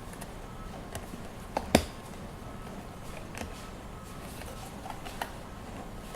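Hard plastic clicking and tapping as a GoPro camera is handled on its plastic display stand. A few scattered clicks, two close together a little under two seconds in, the second the loudest.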